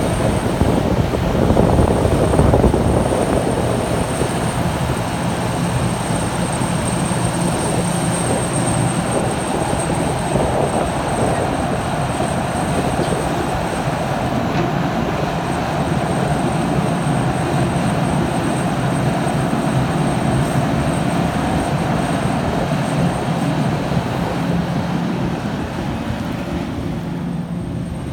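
Liebherr R 974 hydraulic crawler excavator's diesel engine running steadily under load while it digs and lifts a full bucket of soil, a little louder about two seconds in.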